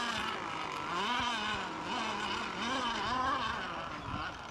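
Radio-controlled racing boat's motor running at speed across the water, its pitch rising and falling about once a second.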